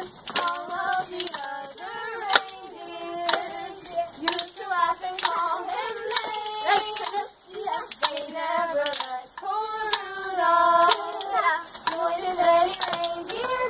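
Children and young girls singing a Christmas carol together, keeping time with hand claps.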